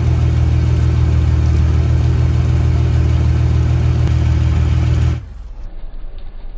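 BMW E28's engine running loud and steady at a constant speed. It cuts off suddenly about five seconds in, leaving a much quieter rumble.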